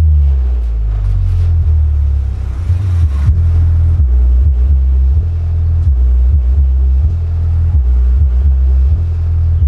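A Wisdom SW 12A 12-inch active subwoofer playing music on its own, with no mid or high speaker: only a deep bassline of low notes, changing pitch about every half second, and no vocals.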